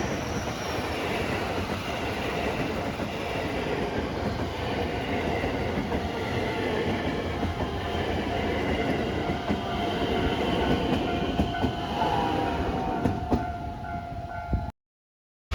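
Electric commuter train moving along the track: a dense rumble with wheels clacking, several steady whining tones, and a tone that falls and levels off about twelve seconds in. The sound cuts out abruptly for about a second at the very end, a dropout in the recording.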